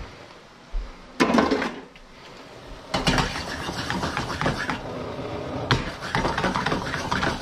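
Kitchen knife chopping fresh basil on a cutting board: a run of quick knocks and taps that starts about three seconds in, after a single louder clank about a second in.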